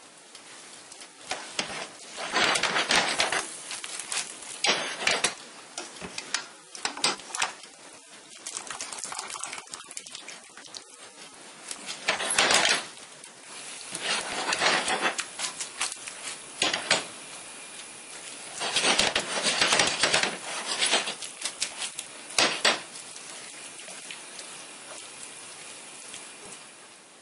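Tongs clattering and scraping against a stainless steel frying pan while tossing spaghetti in sauce, in repeated bursts of rapid clicks, quieter near the end.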